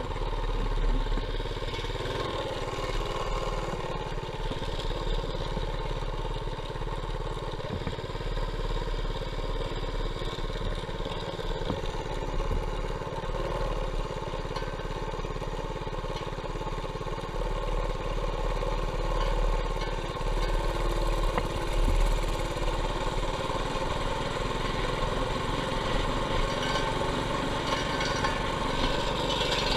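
Mini bike's Predator 212cc single-cylinder four-stroke engine running steadily as the bike cruises, with a heavy low rumble underneath.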